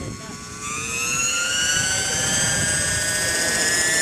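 Radio-controlled scale MD 500 helicopter spooling up on the ground, its motor and rotor whine rising steadily in pitch as head speed builds. It gets louder about a second in.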